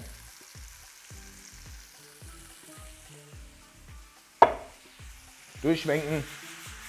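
Artichoke hearts sizzling quietly in a frying pan in orange juice, chili oil and maple syrup. A single sharp knock sounds about four and a half seconds in.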